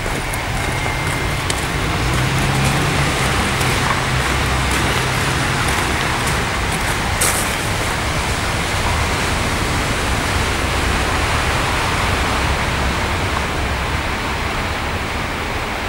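Steady city road traffic noise, with one vehicle's engine hum standing out from about two to six seconds in, and a single sharp click about seven seconds in.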